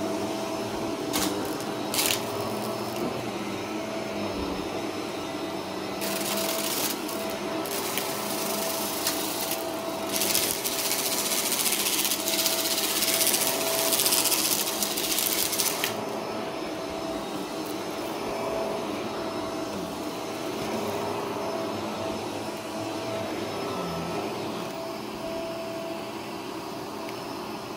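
Upright vacuum cleaner running while being pushed over rug and carpet: a steady motor hum with a whine. From about six to sixteen seconds in, a louder high hiss joins it, and there are two sharp clicks near the start.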